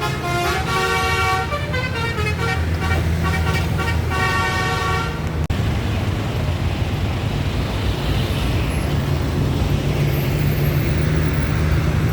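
A bus's Basuri telolet horn plays a melody of several stepping notes for about five seconds, then cuts off suddenly. After that a bus engine runs with a steady low hum under road traffic noise.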